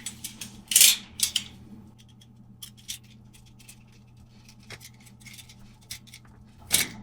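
Small handling sounds from working on a plastic mains plug: two short scraping rasps in the first second and a half, then scattered light clicks and taps, over a faint steady low hum.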